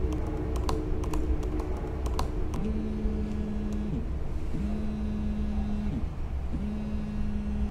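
Fingers typing on a laptop keyboard, then a mobile phone vibrating with an incoming call: three steady buzzes of about a second and a half each, with short pauses between.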